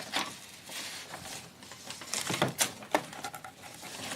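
Irregular light knocks, clicks and clatter of small objects being handled and moved about, as when rummaging through things. The loudest knocks come about two to three seconds in.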